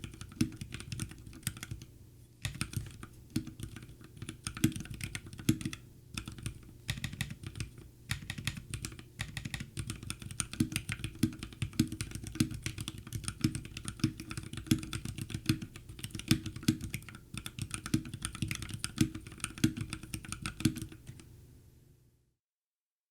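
Fast typing on a custom mechanical keyboard: a Drop Alt High-Profile fitted with Akko CS Jelly Black linear switches lubed with Krytox 205g0 and Artifact Bloom keycaps, giving a dense stream of keystrokes that fades and stops about a second before the end.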